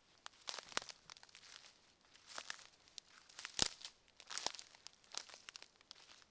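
Footsteps of a person walking at a steady pace on a forest path: a series of short, crackly steps, one every second or so, the loudest about three and a half seconds in.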